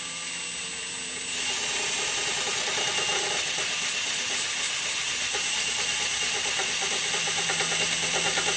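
Electric drill running a lubed letter-Z twist bit through a rusty bolt hole in a cast-iron exhaust manifold flange, cleaning the rust out. A steady whine that gets louder and busier about a second in as the bit bites.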